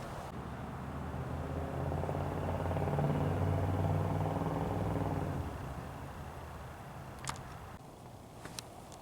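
A motor vehicle's engine passing by, growing louder for a few seconds and then fading away. A single sharp click follows near the end.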